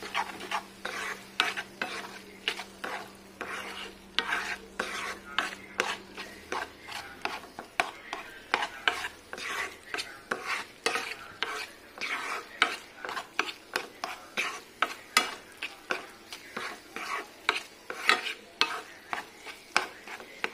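Spatula stirring boiled sago pearls in ghee in a non-stick kadai: quick, regular scraping strokes, about two to three a second, over a light sizzle.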